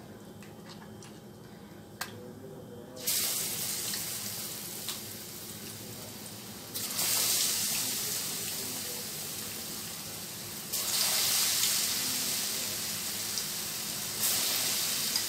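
Batter-coated potato slices being lowered one at a time into hot oil in a steel kadai: the oil bursts into a loud sizzle with each slice, four times, about four seconds apart, each surge easing off before the next.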